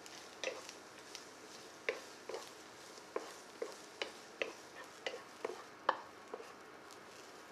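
Wooden spatula stirring julienned carrots in a nonstick frying pan: short taps and scrapes against the pan, about two a second, stopping near the end.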